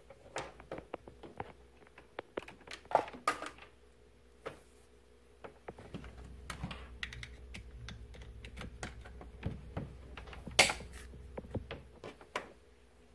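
Irregular small clicks, taps and knocks from hands handling small objects on a workbench, with a sharper knock about three seconds in and again near the end, over a faint steady electrical hum.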